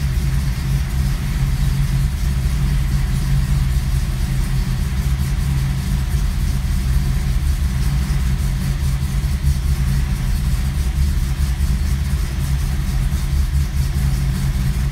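Air-cooled Porsche engine idling fast and steady just after a cold start, with the tachometer near 2,000 rpm and easing only slightly lower.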